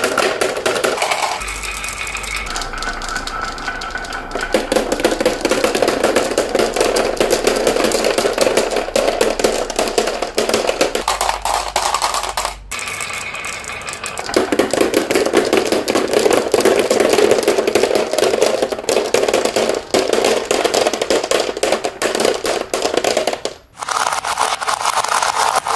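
Marbles rolling and clattering along a toy marble run: a dense, continuous rattle of small clicks. The sound changes abruptly several times, as at cuts between runs.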